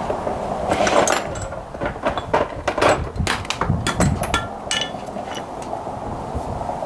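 Irregular clicks and clanks of hand tools against metal parts of the engine bay, with a few short metallic rings about four seconds in.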